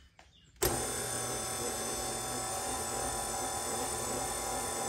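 KitchenAid tilt-head stand mixer's motor switched on, starting abruptly about half a second in and then running steadily as the dough hook begins kneading pizza dough.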